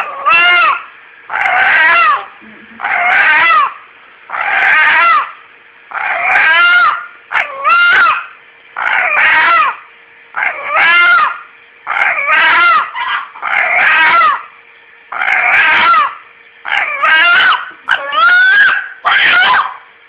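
Rooster calling over and over, a short wavering squawk about every one and a half seconds; the uploader hears the calls as the word 'Allah'.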